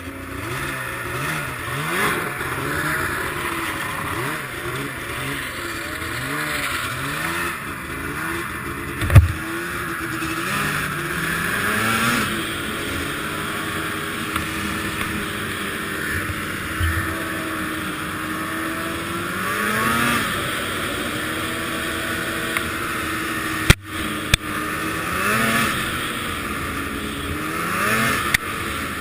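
Arctic Cat ZR 800 snowmobile's two-stroke engine running, its pitch rising and falling with the throttle. There is a sharp knock about nine seconds in and a brief clunk and dropout a little past twenty seconds. The owner suspects bad fuel injectors.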